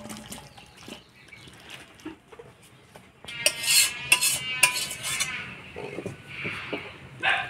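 Metal spoon clinking and scraping against a metal kadai as the finished jackfruit and prawn curry is stirred and taken off the stove. The scraping is loudest and ringing about halfway through, with a sharp clink near the end.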